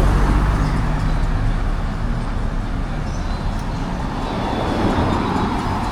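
Road traffic: car engines running close by, a steady low rumble that is loudest in the first two seconds.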